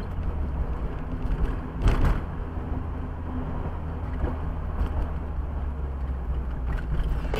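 Car driving, heard from inside the cabin: a steady low rumble of road and engine noise, with one sharp thump about two seconds in and a couple of faint clicks later.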